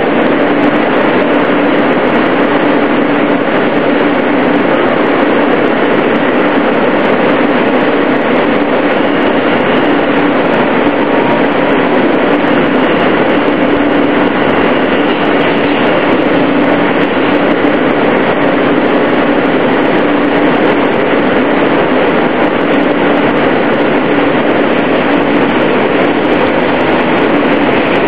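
R160A-2 New York City subway car in motion, heard from inside the car: a steady loud rumble of wheels on rail, with a faint steady hum that comes and goes.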